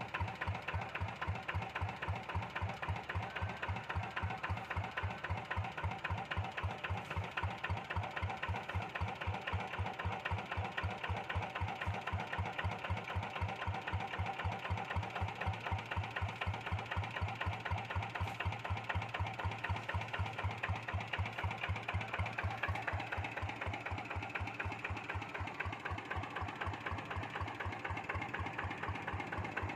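Kubota walk-behind hand tractor's single-cylinder diesel engine running steadily under load while tilling, with a quick, even chugging beat.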